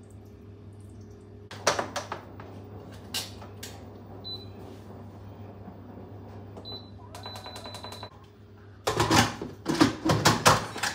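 Electric pressure cooker (Instant Pot) being set to cook: a few clicks, single short high beeps from its control panel, then a quick run of beeps as the buttons are pressed. A loud clatter of hard knocks comes near the end.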